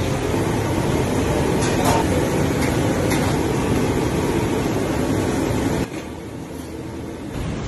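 Steady rumbling noise of a large gas burner and a pot of boiling water while parboiled rice is strained and tipped in. The noise drops sharply about six seconds in.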